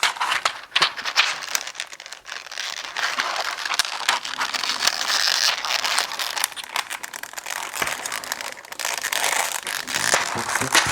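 Plastic keycaps clicking and rattling as they are pressed one after another onto a mechanical keyboard's switches: a dense run of small sharp clicks over a crinkly rustle.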